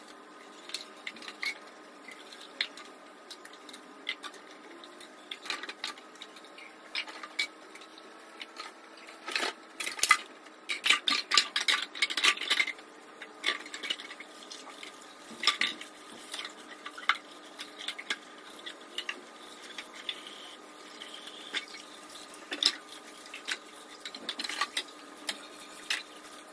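Dishes being washed by hand at a kitchen sink: ceramic mugs and plastic cups knocking and clinking against each other and the sink as they are rinsed and set into a plastic dish rack, with a busier stretch of clatter a little before the middle.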